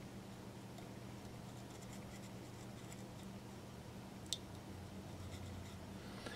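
Faint scratching and rubbing as a wooden toothpick presses tape onto the back of a thin porcelain flower petal, with one small sharp tick about four seconds in.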